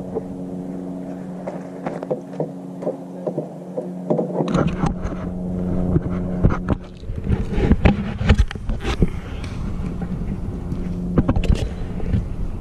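A steady motor hum holding one pitch. From about four and a half seconds in, a low rumble and scattered sharp clicks and knocks join it.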